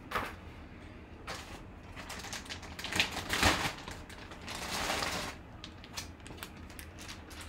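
Clear plastic poly bag crinkling and rustling in irregular crackly bursts as a basketball jersey is handled and pulled out of it, with one longer rustle lasting about a second, about four and a half seconds in.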